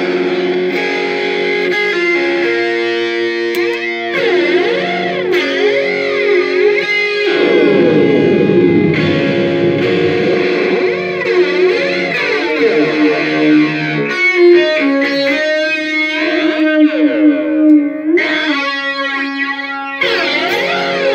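Electric guitar played through a circuit-bent Joyo Classic Flanger pedal: sustained notes and chords that change every few seconds, with the flanger's sweep gliding repeatedly up and down through the tone.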